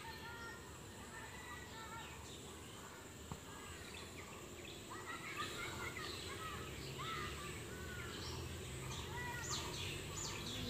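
Small birds chirping and twittering in short repeated calls, growing busier after about four seconds, over a faint steady low hum.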